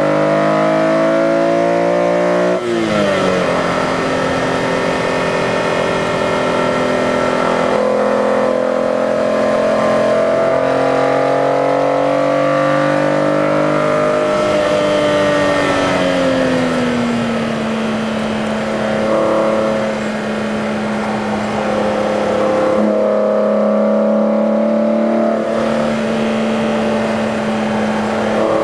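BMW E46 M3's straight-six engine heard from inside the cabin at speed on track, revving up under acceleration and dropping suddenly in pitch at an upshift about two and a half seconds in. It then holds fairly steady, falls away around the middle as the driver comes off the power, and settles to an even note.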